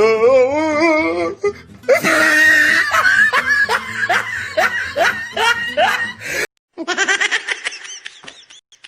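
People laughing hard: a drawn-out wavering laugh, then a long string of quick rhythmic laughs. The sound cuts out to silence for a moment about six and a half seconds in, then more rapid laughter follows.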